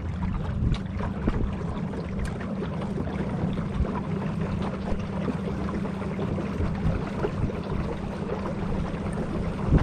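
Boat motor running steadily with a low hum, with water noise around the hull and a sharp knock near the end.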